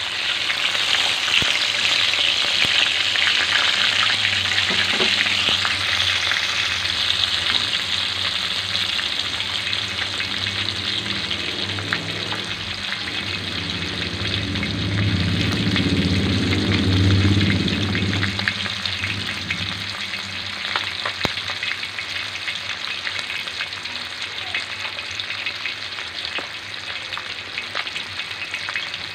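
Two whole tilapia frying in hot oil in a pan, sizzling steadily with scattered crackles and spatters. A low hum swells and fades about halfway through.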